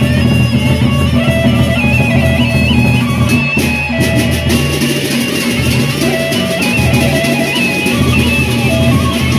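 Sasak gendang beleq gamelan playing: large double-headed barrel drums beating, cymbals clashing in rapid strokes and gongs, under a high held melody line that steps in pitch, likely a suling bamboo flute.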